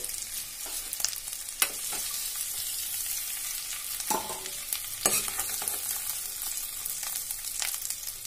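Baby potatoes sizzling in hot mustard oil in a nonstick kadai, a steady frying hiss. Several sharp knocks of a plastic spatula against the pan as the potatoes are scooped out.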